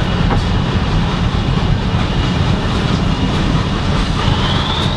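Train running along the track, heard from inside a passenger carriage: a steady rumble of wheels on rails. A faint rising whine starts near the end.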